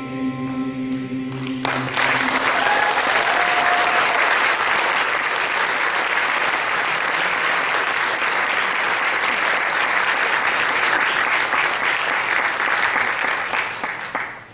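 A men's chorus and accompaniment hold a final chord that cuts off about two seconds in, and a large theatre audience then applauds steadily, the applause dying away near the end.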